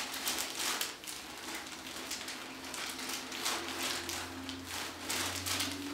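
Hands rubbing and kneading the shoulder and neck muscles during soft-tissue work, making repeated soft rustling strokes.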